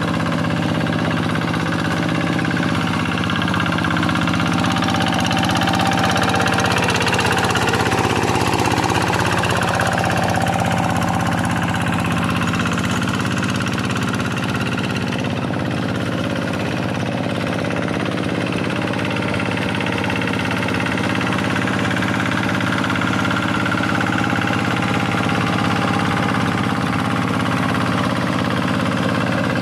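Kubota single-cylinder diesel engine of a Quick G1000 hand tractor running steadily while the tractor plows a rice paddy.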